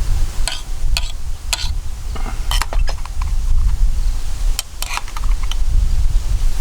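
Metal utensil clinking and scraping against a cooking pot: a string of light, short clinks in two clusters, over a low wind rumble on the microphone.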